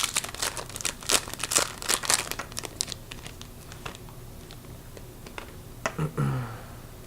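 A trading card pack wrapper being torn open and crinkled, with dense crackling over the first three seconds, then thinning to a few scattered crinkles.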